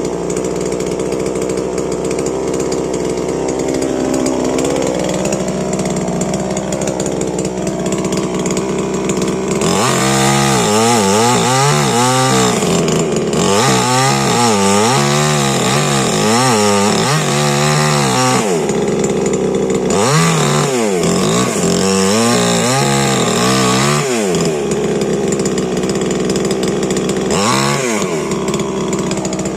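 Stihl MS 881 two-stroke chainsaw cutting wood. It runs at a steady pitch at first. From about ten seconds in, the engine gets louder and its pitch swings up and down again and again for some fourteen seconds as the load on the chain changes, then it settles to a steady pitch near the end.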